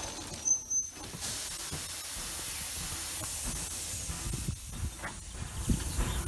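Steam hissing from the Southern Railway steam tank locomotive W24 Calbourne as it hauls the train, swelling louder for a couple of seconds past the middle.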